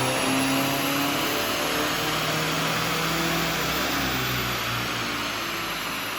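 Tuned Audi A3 2.0 TDI diesel running on a rolling-road dyno, with a high whistle that rises and then falls about two-thirds of the way through. The overall sound eases off slightly toward the end.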